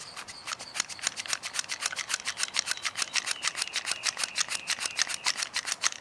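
Mityvac hand vacuum pump being squeezed rapidly, a quick even run of short strokes, as it draws vacuum on a purge valve up to about 27–28 inches of mercury.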